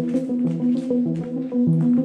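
Instrumental background music: a repeating pattern of pitched notes over a steady beat.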